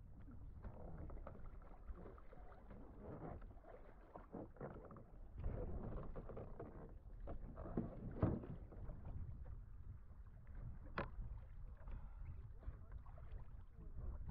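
Seawater sloshing and splashing against a sea kayak's hull as a swimmer in the water handles the boat, with a couple of sharp knocks on it.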